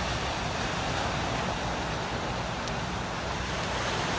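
Steady rushing wash of ocean surf on a cobble beach, with wind on the microphone.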